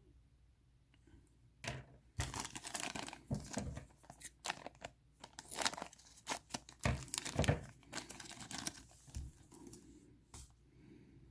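Plastic packaging crinkling and rustling as bags of miniatures are handled and opened: a quick run of short rustles starting about two seconds in and dying away near the end.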